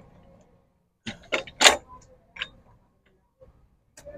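Sharp metallic clicks and clinks from gearbox parts being handled in the John Deere 5310 tractor's gearbox housing, a cluster about a second in and a few fainter ones later.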